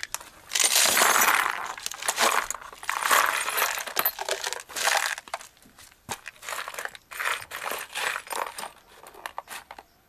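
Loose metal bolts and other small hardware poured from a bucket onto cardboard, a dense clattering rush about half a second in, followed by bursts of clinking and rattling as the pile is raked through by hand.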